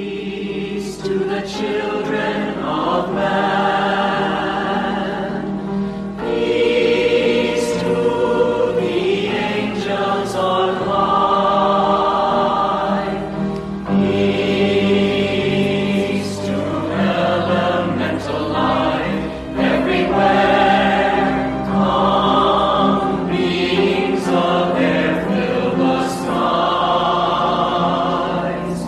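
Choral music: a choir singing in long held phrases over a steady low drone.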